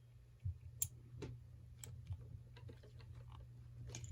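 Faint, irregular clicks and taps from a trick bolt puzzle being twisted and handled, the bolt locked up and barely turning.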